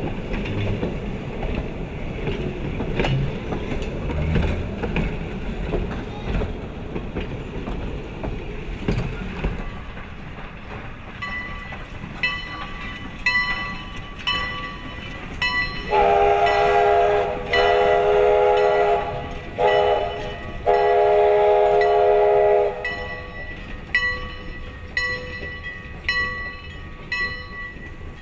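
A 0-6-0 steam switcher locomotive rumbles along, then its bell starts ringing steadily, about a dozen seconds in. Midway the steam whistle sounds four blasts: long, long, short, long, the grade-crossing signal, while the bell keeps ringing.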